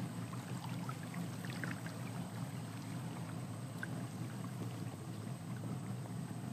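Steady low rumble and water sounds from a boat moving slowly along a calm forest river, with faint scattered high chirps over it.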